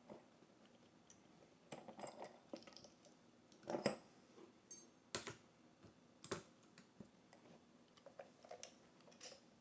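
Faint, scattered clicks and taps of a deadbolt lock cylinder and its picking tools being handled and set down, the loudest a little under four seconds in.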